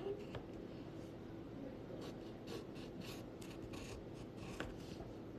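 Wooden pencil scratching on paper in short, quick strokes, with brief pauses between runs.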